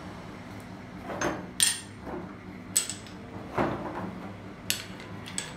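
Metal hand tools being handled and set down, about half a dozen sharp clinks and knocks, several with a brief high metallic ring.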